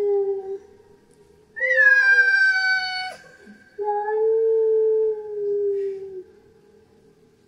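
A female cat in heat yowling her mating call. The tail of one drawn-out call is followed by two more long calls. The first starts high and slides down, and the second holds steady and sinks slightly before stopping.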